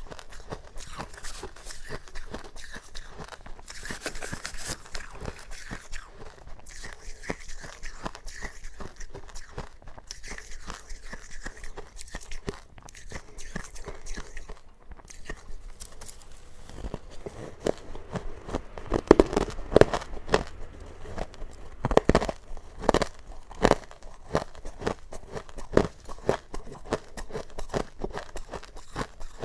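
Close-miked crunching and chewing of powdery freezer frost, a dense run of small crackling crunches. From a little over halfway through come louder, sharper bites, about one a second.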